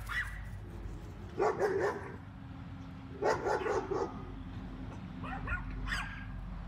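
Small dogs barking in quick, high yappy bursts: two main flurries about two seconds apart, then a few fainter yips near the end.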